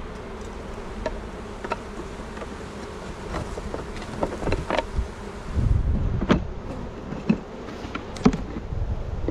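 Honey bees buzzing steadily around an opened hive, with scattered sharp knocks and clicks from hive equipment being handled, several of them about halfway through and a loud one near the end.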